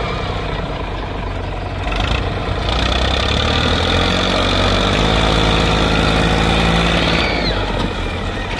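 TAFE tractor's diesel engine working hard under load as it hauls a heaped soil trailer out of a muddy rut. The revs build about three seconds in and ease off again near the end.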